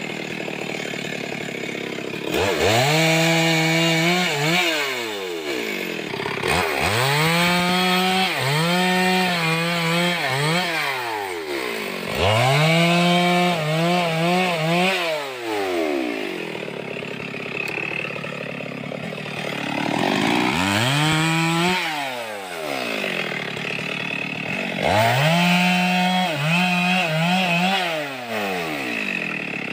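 Two-stroke chainsaw cutting through logs in repeated bursts, about five times: each time the engine revs up to full throttle, its pitch wavers under load in the cut, then it drops back to idle.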